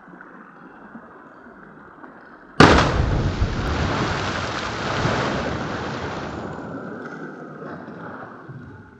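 Sudden loud explosion sound effect about two and a half seconds in, dying away smoothly over about four seconds, over a low steady background hiss.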